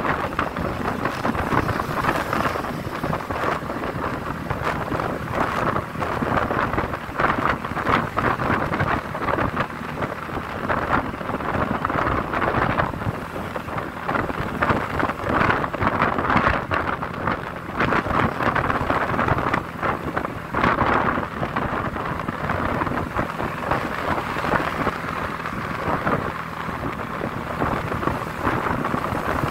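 Continuous rushing wind and road noise from riding a motorbike, buffeting the microphone and rising and falling in strength, with a low engine hum underneath.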